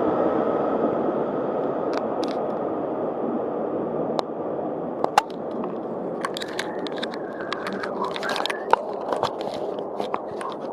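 Passenger train running, its steady rumble slowly easing, then a run of sharp clicks and scrapes over the second half.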